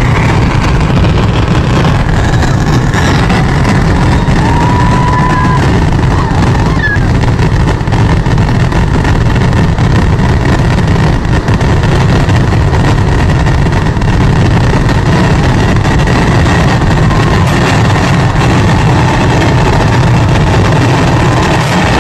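Kerala temple fireworks (vedikettu) barrage: firecrackers going off so rapidly that the blasts merge into one loud, continuous rumble.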